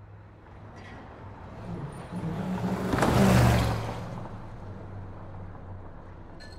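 A motor vehicle driving past close by: its engine hum and tyre noise swell to a peak about three seconds in, then fade away.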